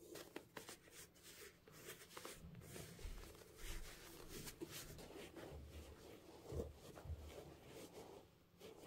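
Faint rustling and scraping of cotton-gloved hands handling a leather sneaker, with small clicks as the lace and upper are worked and a few dull low thumps in the middle.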